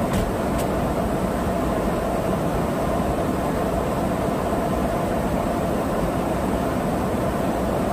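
Steady drone of aircraft engines and rushing airflow heard aboard a KC-135R tanker in flight, an even noise with no change in level.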